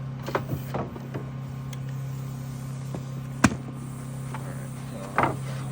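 Steady low hum of a running generator, with a few light knocks early on and one sharp click about three and a half seconds in.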